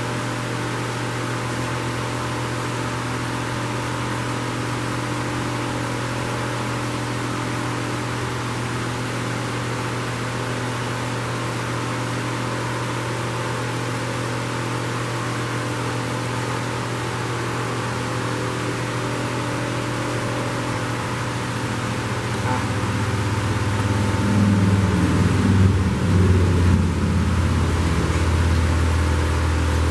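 Steady whir and hum of an electric fan running. About two-thirds of the way in, a louder, uneven low rumble joins it and carries on to the end.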